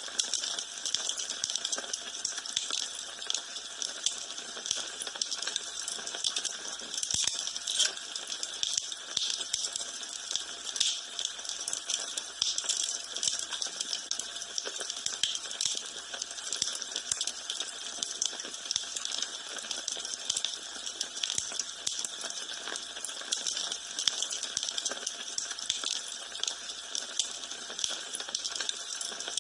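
Wood fire burning in a fireplace, crackling steadily with a dense run of small snaps over a soft hiss and frequent louder pops.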